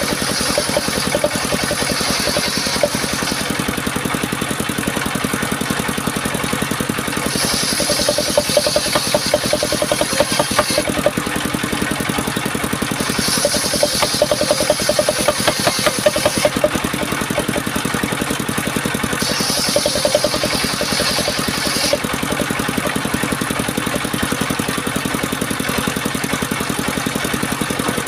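Engine-driven homemade circular saw running steadily, its blade biting through waru wood in four passes of a few seconds each, heard as a higher-pitched cutting noise rising over the engine drone and dropping away between cuts.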